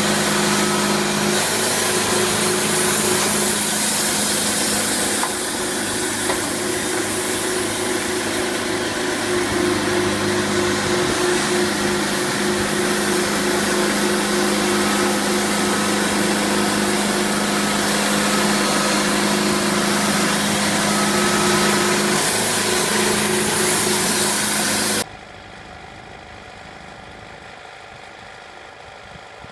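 Sawmill machinery running: a steady engine drone with a humming whine. It drops away suddenly near the end to a much quieter running sound.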